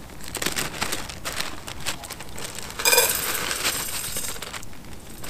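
A plastic bag crinkling as dehydrated spaghetti bolognese is poured from it into a small metal pot. The dry pieces rattle and clink against the metal, loudest about three seconds in.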